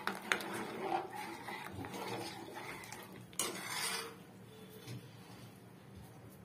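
Steel ladle stirring kheer, milk and rice, in a metal cooking pot, clinking and scraping against the pot's sides and bottom. The clinks are busiest in the first four seconds, then the stirring goes quieter.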